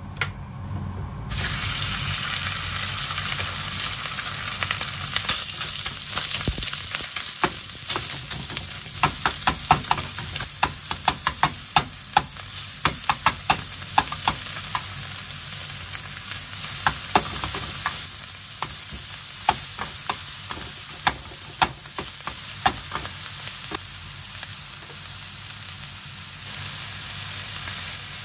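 Ground meat sizzling in hot oil in a nonstick frying pan. The sizzle jumps up suddenly about a second in, as the meat hits the oil. A slotted spatula clicks and scrapes against the pan many times as the meat is stirred and broken up, most often in the middle stretch.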